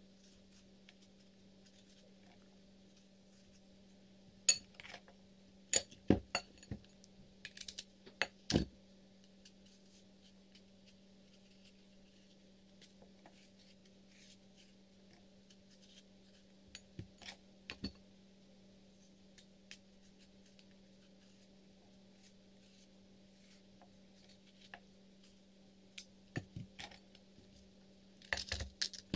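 A knife and metal kitchen utensils click and clink against a ceramic bowl and apples as apples are peeled and cut. The sounds come in scattered clusters a few seconds in, around the middle and near the end, over a steady low hum.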